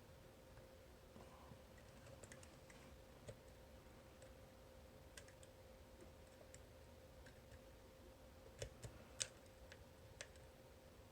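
Faint, scattered metallic clicks and ticks from a homemade pick working the rotating discs of an Abloy Classic disc-detainer cam lock, with a few louder clicks close together a little past the middle. A faint steady hum runs underneath.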